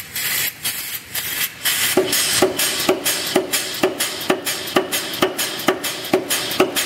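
Blu Max 110 air hammer (110 lb ram) cycling on a metal rod held between its dies. A few light irregular taps come first, then about two second in it settles into steady blows, about two a second, each ringing briefly over a constant hiss of compressed air.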